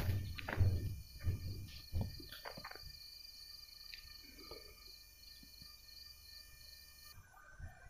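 Walking steps through a green cereal field, heard as low thumps on the phone's microphone about every two-thirds of a second, which stop after about two and a half seconds. Then a quiet stretch with faint, steady, high-pitched insect chirring that stops near the end.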